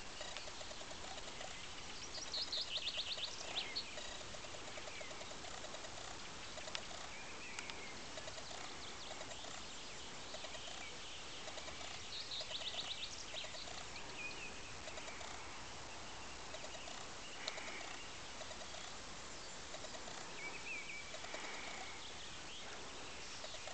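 Wild birds singing over a steady outdoor hiss: a high, rapid trill comes twice, about two and twelve seconds in, and a lower call of short pulses repeats in runs throughout.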